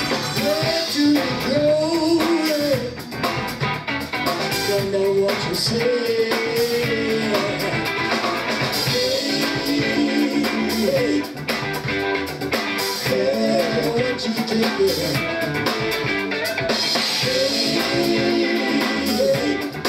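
Live electric trio playing a song, with electric guitar over bass and drum kit, running steadily at full band level. The guitar is a little too loud in the mix, much of it coming from the guitarist's stage amp.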